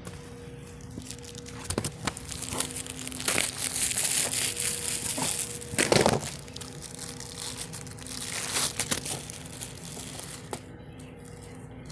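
Plastic packaging crinkling and tearing as a new intake manifold gasket is unwrapped, in two main rustling stretches with scattered clicks and a sharp knock. A faint steady hum runs underneath.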